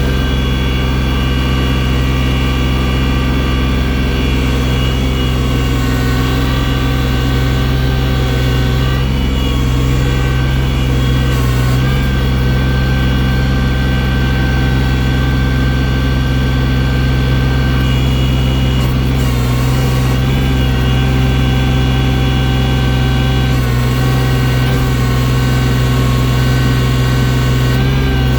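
Tractor engine running steadily under load while the loader bucket moves snow, its pitch shifting slightly a few times as the revs change.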